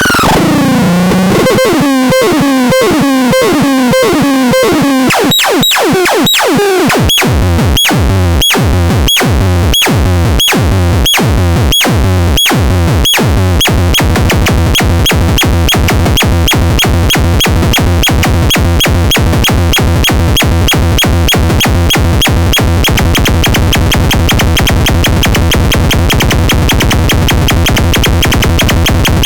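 Electronic synthesizer sound: a looping pattern of pulses with falling pitch sweeps, turning into sharp clicky beats about twice a second, then about halfway through a faster, denser steady pulse.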